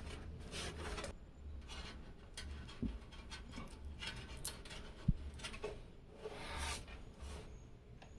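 Handling noise from PC parts being worked on: irregular rubbing and scraping, with a small knock about three seconds in and a sharper one about five seconds in.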